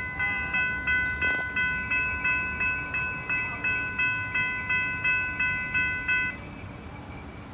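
Railroad crossing bell ringing at about three strikes a second over the low rumble of the passing train, then cutting off suddenly about six seconds in as the crossing clears.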